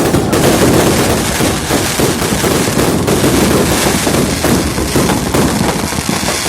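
Many fireworks and firecrackers going off at once: a dense, unbroken crackle of overlapping bangs.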